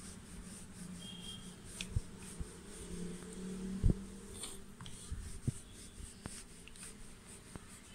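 Wooden rolling pin rolling out folded paratha dough on a floured worktop: soft rubbing with irregular knocks as the pin meets the surface, the sharpest a little before halfway. A low steady hum lies underneath.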